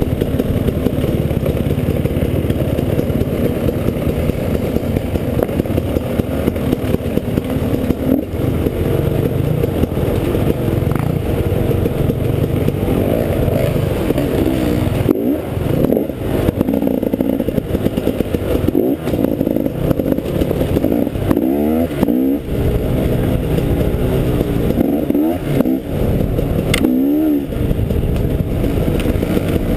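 Enduro dirt bike engine running under load as it is ridden off-road. It runs fairly steadily at first, then from about halfway in it revs up and down over and over, with a few sharp knocks.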